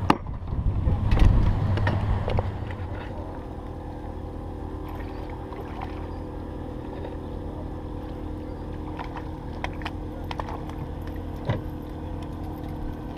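Boat engine idling with a steady low hum. A louder low rumble fills the first two seconds, and a few light clicks come later.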